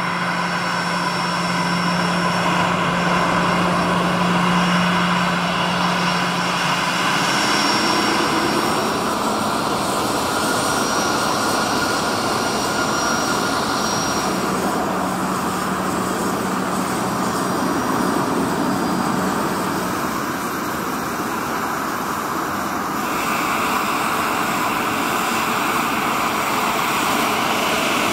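Bombardier business jets' turbofan engines running at low power while taxiing: a steady jet whine over a low hum. The sound shifts abruptly a few times as one jet gives way to another.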